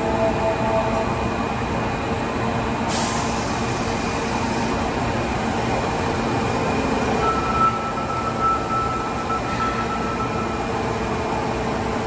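Osaka Metro 21 series subway train standing at an underground platform, its onboard equipment giving a steady hum. A short, sharp hiss of released air comes about three seconds in, and a thin steady tone sounds for a few seconds in the second half.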